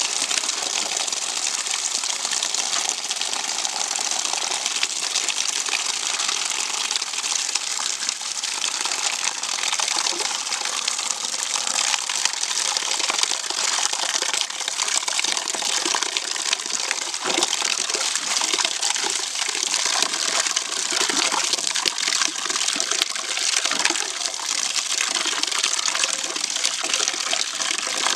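Steady rush of running water, unbroken throughout.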